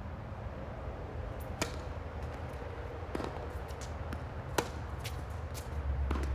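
Tennis ball struck by rackets and bouncing on a hard court during a rally: sharp pops roughly every second and a half, the loudest about four and a half seconds in. A steady low rumble runs underneath.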